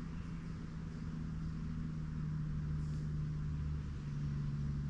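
A steady low mechanical drone with a held hum, growing slightly louder about two seconds in, over a soft outdoor hiss.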